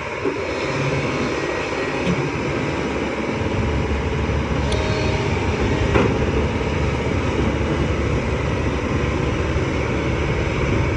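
Hyundai excavator's diesel engine running steadily, with a single sharp knock about six seconds in.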